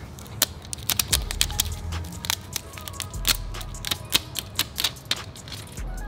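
A run of irregular sharp clicks or taps, several a second, over background music with deep bass notes.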